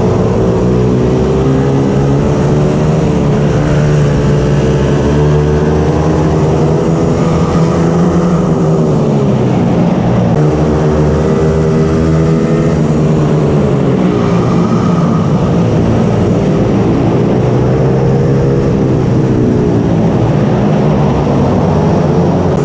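Racing mini bike engine running hard, its revs dropping twice and climbing back up.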